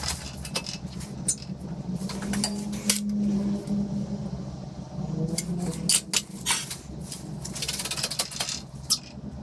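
A steel plate and a metal spirit level being shifted and set down on the steel table of a hydraulic press: scattered metallic clanks and clicks.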